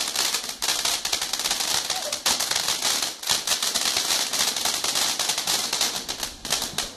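Firework crackling: a rapid, dense stream of small pops and crackles that stops suddenly near the end.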